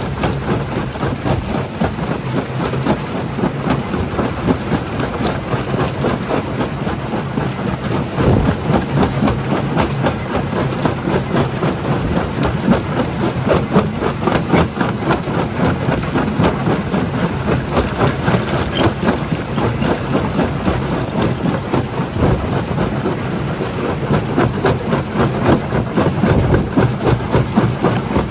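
Jaw crusher running and crushing rock: a steady machine din with a dense clatter of cracks and knocks from the stone.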